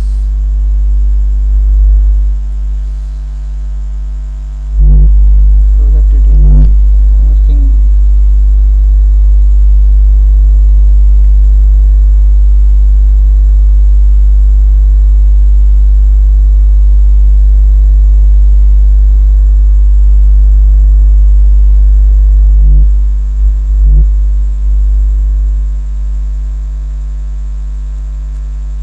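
Loud, steady electrical mains hum: a low drone with a stack of even overtones, of the kind picked up by a recording microphone. It grows louder about five seconds in and eases back near the end, with a few short faint sounds at the changes.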